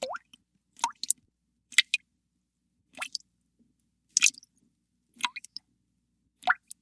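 Water drops falling one by one into water, a short plink about once a second, each rising quickly in pitch, sometimes two in quick succession.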